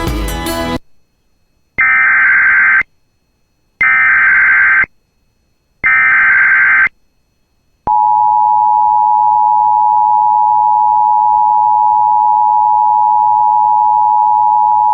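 Emergency Alert System signal: three short bursts of the SAME digital data header, each a harsh buzzing warble about a second long and spaced two seconds apart, encoding a severe thunderstorm warning. They are followed about eight seconds in by the EAS two-tone attention signal, a steady loud dual tone. A snatch of guitar music ends just under a second in.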